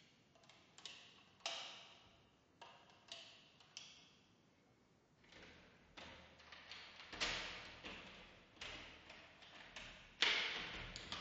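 A series of sharp knocks and taps at uneven spacing, each with a short echo, the loudest near the end.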